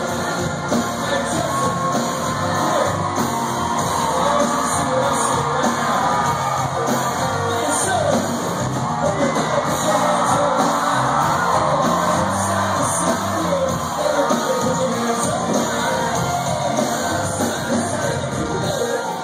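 Country rock band playing live in a large hall, with electric and acoustic guitars and drums. A packed crowd sings along loudly and cheers and whoops over it.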